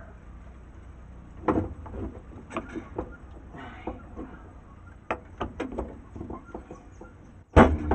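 Metal clicks and knocks as the rear end cap of a starter motor is worked by hand back over the new carbon brushes, with a loud clunk near the end as the cap goes fully home.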